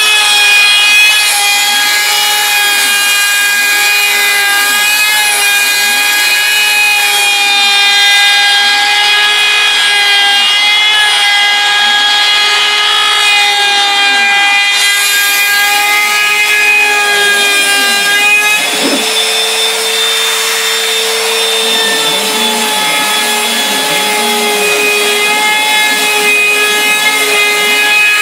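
Bosch Colt palm router on a CNC Mogul cutting bamboo with a two-flute bit: a steady high motor whine over a rasping cutting noise that swells and fades in a regular rhythm. About two-thirds in, the cutting noise drops away and the whine rises a little for a few seconds, then the cut resumes.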